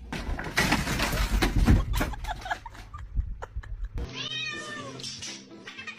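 About four seconds of loud rustling and scuffling with sharp knocks, then a domestic cat meows once, a single drawn-out call.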